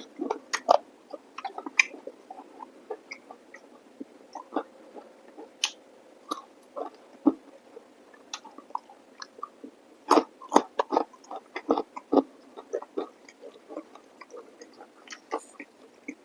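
Close-miked eating: chewing and lip smacking on chicken curry with rice and salad, in irregular wet clicks with a few louder bites.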